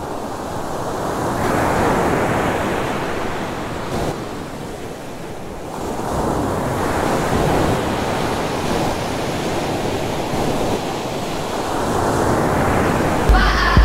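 Ocean surf: waves washing ashore, swelling and ebbing about every five seconds, with some wind. Near the end the song's music starts with a low bass note and sustained chords.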